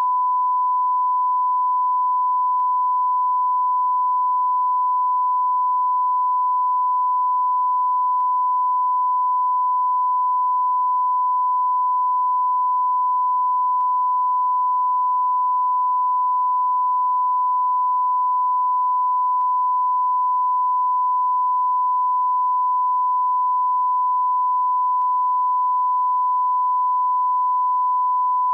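Bigo Live beep sound effect: a continuous pure beep tone at about 1 kHz, held at one pitch without a break. A very faint tick comes about every five and a half seconds.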